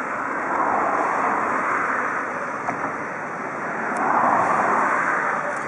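DR Class 18 201 steam locomotive under steam on a turning turntable: a steady rushing noise that swells twice, about a second in and again around four seconds.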